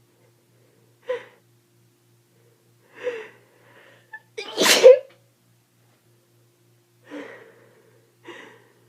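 A person with a cold sneezing once, loudly, about halfway through. Several short, quieter breathy sounds come before and after it.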